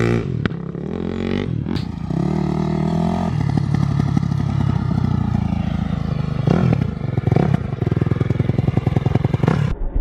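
KTM 250 SX-F dirt bike's single-cylinder four-stroke engine with an Akrapovič exhaust, ridden under load. The engine note steps up in pitch with the throttle and shifts, with short throttle blips later on.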